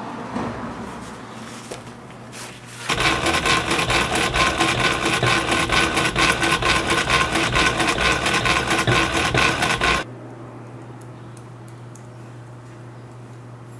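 Industrial post-bed sewing machine with a roller presser foot stitching a nubuck shoe upper: a fast, even run of stitches that starts about three seconds in and cuts off suddenly about seven seconds later. Before it, pattern pieces rustle as they are handled; after it, a low steady hum is left.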